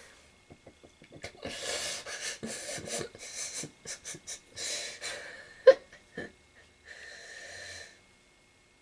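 A man's stifled, breathy laughter: irregular wheezing gusts of breath, with two short sharp catches about two-thirds of the way through, dying away near the end.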